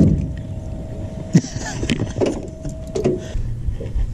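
Handling knocks and clicks against an aluminium jon boat, with one sharp knock about a second and a half in, over a faint steady whine that stops about three seconds in.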